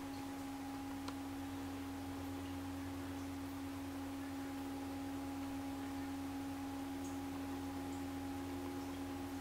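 A steady low hum: one unchanging tone with a fainter higher overtone, holding level throughout.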